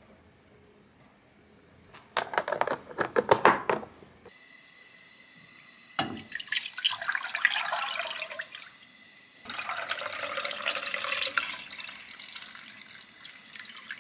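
A quick, loud run of clicks and clatter about two seconds in, then liquid poured from a glass measuring jug into a saucepan in two pours: whey first, then milk, each a steady splashing pour that tails off.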